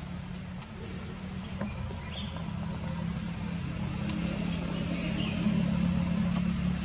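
A motor vehicle's engine running with a steady low hum that grows gradually louder.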